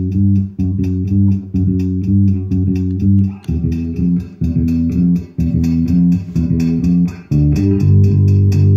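Electric bass line played through effects pedals, in short chopped notes that repeat in a pattern, giving way to longer held notes about seven seconds in.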